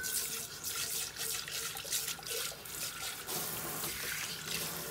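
Kitchen tap running steadily into the sink as a Thermomix's stainless steel mixing bowl is rinsed under it.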